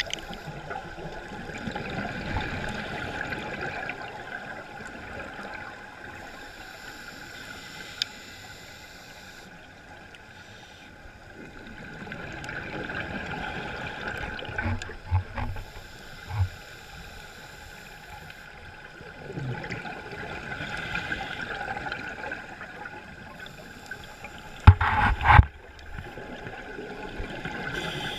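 A scuba diver's exhaled bubbles gurgling and rushing past an underwater camera, swelling in long stretches every several seconds with each breath out. A few sharp knocks, with the loudest clatter about twenty-five seconds in.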